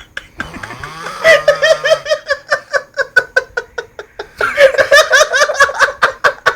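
Loud, hearty human laughter in rapid 'ha-ha' pulses, about four to five a second, starting about a second in, easing briefly past the middle, then rising again in a stronger burst.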